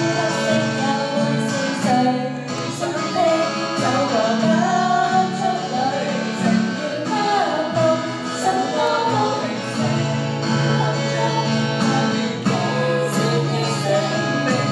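Live amplified performance of a Cantonese pop song: two acoustic guitars strummed under female and male voices singing into handheld microphones.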